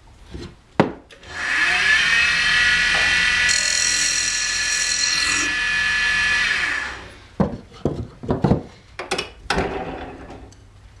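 Jet wood lathe spinning a dowel blank while a turning tool cuts it down to size: a loud, steady cutting sound with a fixed whine in it, lasting about six seconds. The cutting then stops and a string of light wooden knocks and clicks follows as the dowel's tip is tried in the hole of the guide block.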